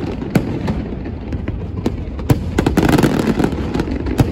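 Fireworks display: a rapid, irregular series of sharp bangs and crackling bursts over a constant rumble, with a denser stretch of crackling past the middle.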